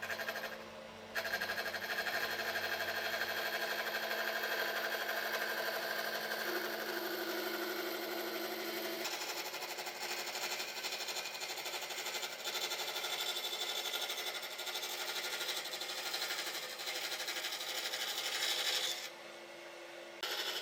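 A woodworking power tool running steadily with a whine and a rapid mechanical rattle. It starts about a second in, cuts out shortly before the end, then starts again.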